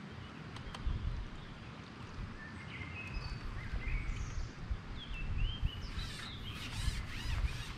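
Small birds chirping in short, scattered calls, growing busier near the end, over a low background rumble.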